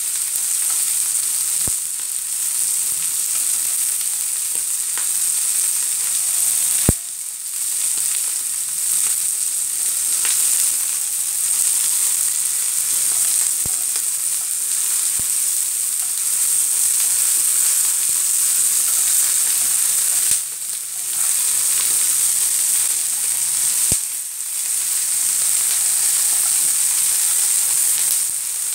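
Shell-on prawns sizzling steadily in hot oil in a frying pan as they are fried until the shells crisp, broken by a few sharp clicks, the loudest about seven seconds in.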